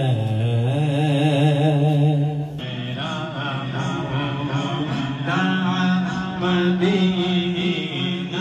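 A man singing solo into a handheld microphone in long, wavering held notes. About two and a half seconds in it cuts abruptly to another recording of him singing.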